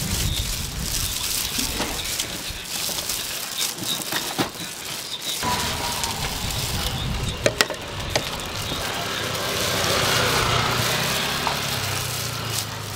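Steady sizzling hiss of street-stall cooking, broken by a few sharp clicks, two of them close together about seven and a half seconds in.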